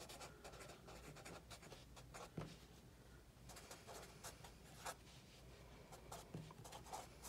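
Felt-tip marker writing on a paper pad: faint, irregular scratching strokes as words are written out.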